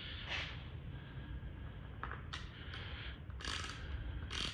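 A few short scrapes and clicks as a ratcheting oil filter wrench is handled and flipped over.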